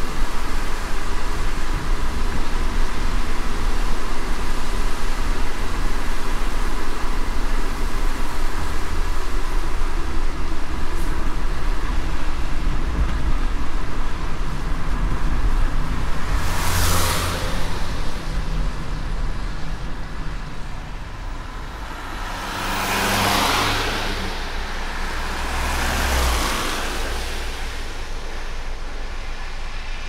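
Steady rain with a low traffic rumble. In the second half, three vehicles pass on the wet road one after another, each tyre hiss swelling and fading.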